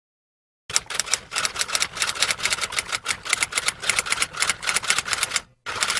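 Typewriter typing sound effect: a fast, continuous run of sharp keystroke clicks starting about a second in, with a brief break near the end before the typing resumes.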